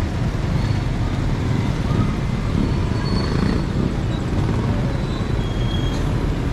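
Steady street traffic noise: a continuous low rumble of vehicles running on the road, with no single loud event standing out.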